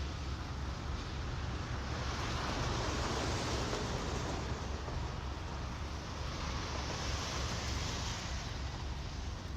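Sound-effects record track: a rushing noise that swells and fades every two to three seconds over a steady low rumble.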